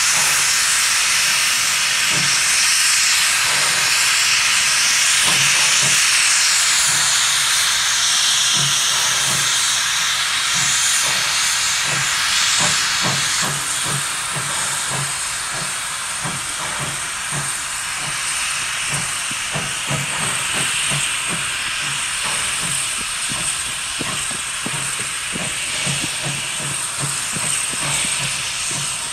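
Baldwin steam locomotive working slowly under steam: a loud, continuous hiss of steam venting low at its sides, with a regular beat of exhaust chuffs that becomes plain after about twelve seconds as the hiss eases a little.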